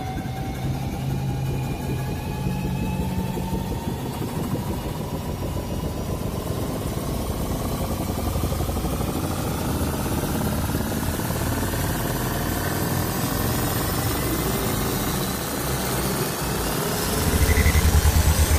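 A sound-effect riser: a rumbling, engine-like drone under a whine that climbs slowly and steadily in pitch, with a fast pulsing throb joining near the end.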